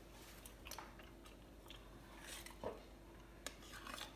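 Faint, scattered small clicks and taps as a tin of condensed milk is tipped and handled over a mixing bowl.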